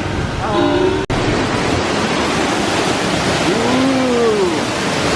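Waterfall rushing loudly and steadily, after a sudden brief cut-out about a second in.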